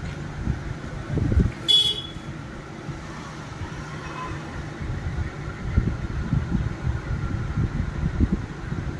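Honda Dio scooter engine running unevenly, with a low pulsing sound. About two seconds in there is a brief high-pitched beep.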